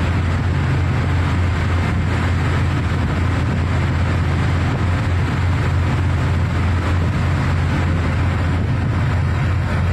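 Heavy diesel machinery droning steadily, a deep even hum with a rushing noise over it, typical of the engines that run an offshore platform and its crane during a personnel transfer.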